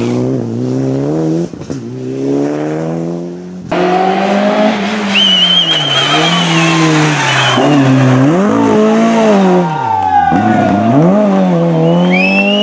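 Rally cars driven hard, first a Mitsubishi Lancer Evolution: engines revving up and dropping back again and again through gear changes and corners. The sound changes abruptly to another car about four seconds in, and a high tyre squeal rises twice.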